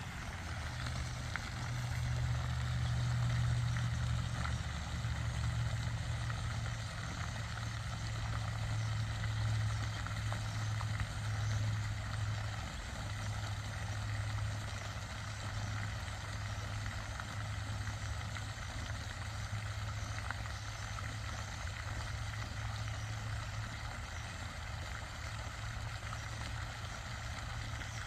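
Pond water fountain running: a steady low rumble under an even hiss of splashing water.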